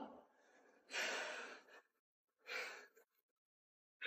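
A man's two faint exasperated sighs: a longer breath out about a second in, and a shorter one around two and a half seconds in.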